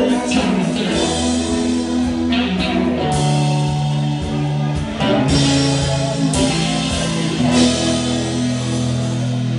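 Live country band playing an instrumental passage: electric guitar over bass and drum kit. For the last two seconds or so the band holds long sustained notes with fewer drum hits.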